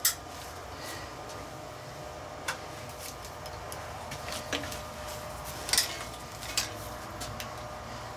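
Scattered sharp clicks and knocks, about half a dozen, the loudest near the start and about six seconds in, from handling the metal fittings of a wood lathe and its jack while a large log is being secured on it, over a steady low hum.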